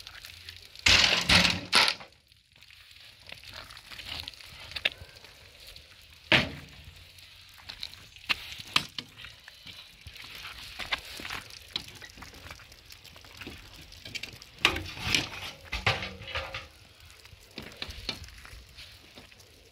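Knocks, scrapes and clatter of rooftop building work over a faint steady hiss of falling sleet, with a loud clatter about a second in as a long flat panel is handled, then scattered sharp knocks and another burst of scraping and clatter later on.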